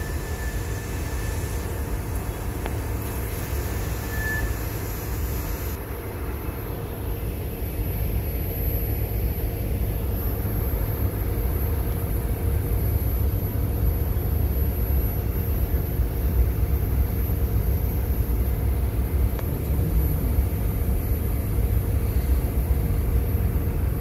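A freight train's cars rolling steadily past on the track, a continuous low rumble of wheels on rail.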